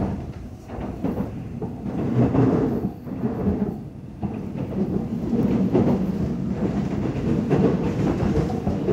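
Low, uneven rumble of a metro train crossing a bridge, easing about three seconds in and building again from about four seconds on.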